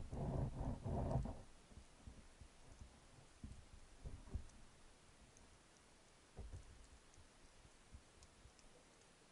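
Faint underwater ambience of scattered small clicks and ticks, with a few soft low thumps. At the start a low rumble with a steady hum fades away in about a second and a half.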